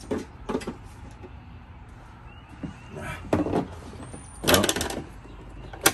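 Hard plastic knocks and rattles of a Kobalt 40 V lithium-ion battery pack being pushed and turned in the mower's plastic battery compartment, first the wrong way round, with a burst of rattling about four and a half seconds in and a single sharp click near the end as it latches.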